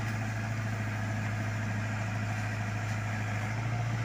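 Backhoe loader's diesel engine running steadily with a low, even hum while the boom lifts the bucket out of the freshly dug hole.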